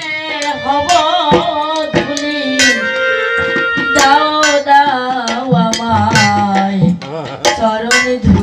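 Live Bengali devotional song (Matua Hari kirtan): a drawn-out, ornamented sung melody with accompanying instruments and frequent hand-drum strokes.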